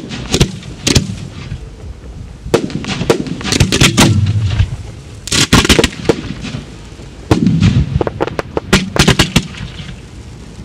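Fireworks display: mortar-fired shells going off, with many sharp bangs in quick clusters and crackling between them, about a dozen reports in all and a busy cluster around the middle and again near the end.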